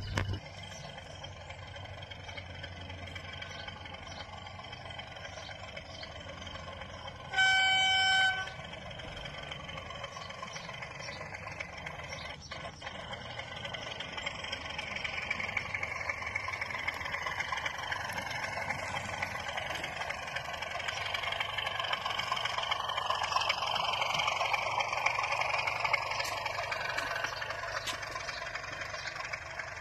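Sound-fitted OO gauge model diesel locomotive running on track, its speaker giving a steady diesel engine sound. One loud horn blast about seven seconds in, lasting about a second. The running sound of engine and wheels on rails grows louder in the second half as the train draws near, then eases near the end.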